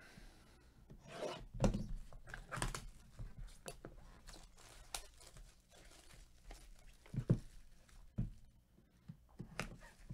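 Blue-gloved hands tearing and handling clear plastic wrapping and cardboard packaging: rustling and crinkling with scattered taps, and a couple of louder knocks in the second half.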